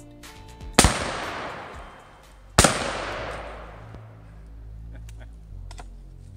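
Two 12-gauge shotgun blasts, about two seconds apart, fired with 2¾-inch, 1-ounce No. 6 birdshot loads. Each is followed by a long echoing decay.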